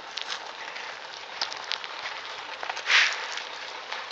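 Footsteps and shuffling on gravel with a steady hiss, a few faint clicks, and a louder short rush of noise about three seconds in.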